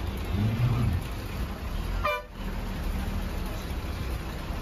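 Bus engine and road noise, steady throughout, with a vehicle horn sounding once, low-pitched and lasting about half a second, shortly after the start. About two seconds in the noise briefly dips under a short higher tone.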